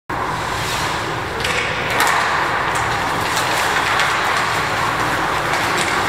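Ice hockey game in play in a rink: a steady hiss of skate blades on the ice, with sharp clacks of sticks on the puck now and then.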